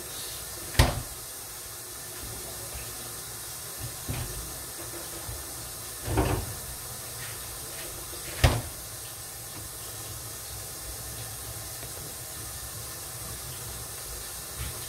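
Steady hiss of lidded pots cooking on a stovetop, broken by three sharp knocks: about a second in, about six seconds in, and about eight and a half seconds in.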